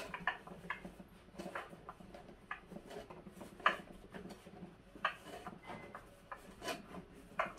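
A flat-pack table leg being screwed by hand into the tabletop: irregular wooden creaks, rubbing and small clicks as it turns, with a few sharper knocks in the second half.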